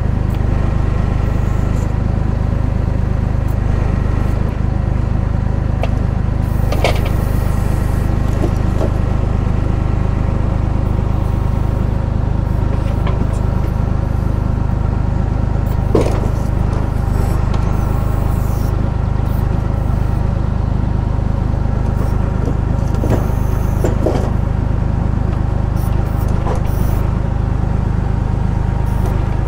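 Valtra A93 tractor's diesel engine running steadily at just over 1000 rpm, driving the log crane's hydraulics, with a few short knocks as logs are handled.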